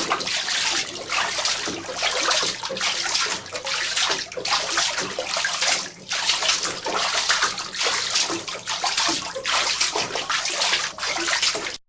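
Footsteps splashing through shallow water, a continuous run of sloshing steps that cuts off abruptly near the end.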